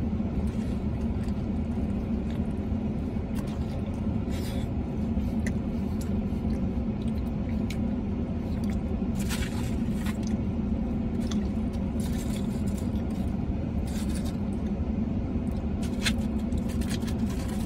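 Steady low hum of a parked truck idling, heard inside the cab, with scattered short wet clicks and smacks of chewing a burrito.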